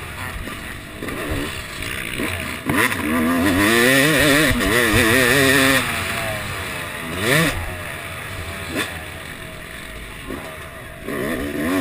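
Yamaha YZ250 two-stroke motocross engine being ridden hard, its pitch wavering rapidly up and down as the throttle is worked. It is loudest from about three to six seconds in, with a shorter rev near seven seconds, then eases off to a lower drone.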